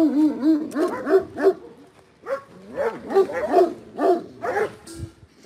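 Dogs barking in quick repeated barks, one run in the first second and a half and another from about two seconds in until near the end.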